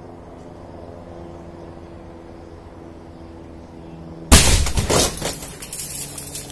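A car's airbag deploying with a sudden loud bang about four seconds in, followed by a second or so of crackling as the windscreen cracks. Before the bang there is only a steady low hum.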